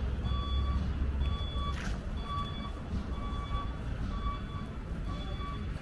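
Vehicle reversing alarm beeping steadily, about two short beeps a second, over a low engine rumble.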